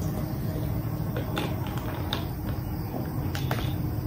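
A person drinking in gulps from a plastic bottle, with a few faint clicks of the plastic.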